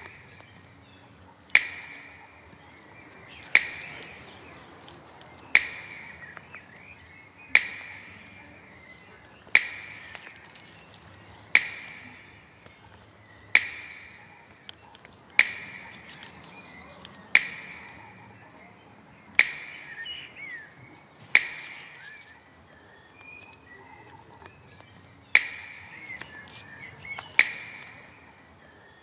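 Sharp percussive strikes at a steady pace of one about every two seconds, each with a short ringing decay; one beat is left out near the end.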